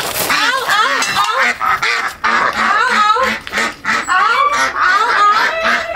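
A flock of white domestic ducks quacking loudly and continuously, many short calls overlapping.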